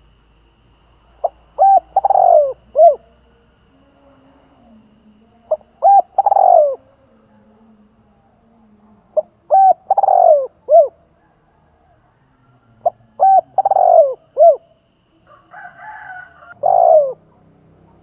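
Spotted dove cooing, a kept decoy bird calling to draw other doves. It gives four repeated phrases about every four seconds, each a couple of quick short notes, a longer falling coo and a short closing note. Near the end comes a brief rougher sound, then one more single coo.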